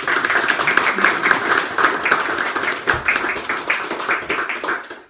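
Audience applauding: a dense run of many hands clapping, dying away just before the end.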